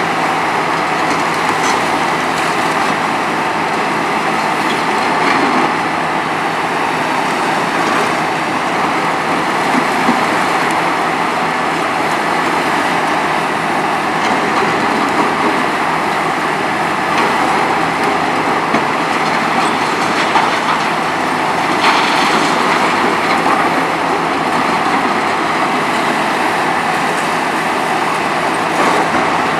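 Hitachi ZX 300LC-6 demolition excavator working: diesel engine and hydraulics running steadily under load, with clattering and knocks of concrete and debris from the crusher work.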